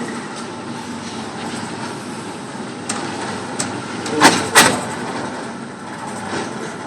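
Range target carrier running along its track, a steady mechanical rumble, with two sharp bangs about a third of a second apart near the middle.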